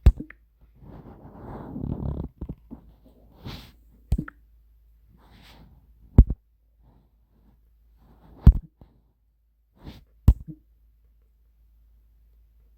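Handling noise: about five sharp knocks or taps a couple of seconds apart, with soft rustling and hissing between them.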